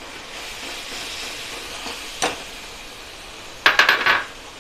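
Steel spoon stirring a thick spiced tomato masala that sizzles gently in a steel kadhai. There is a single knock about two seconds in, and a quick run of clinks and scrapes of the spoon against the pan near the end.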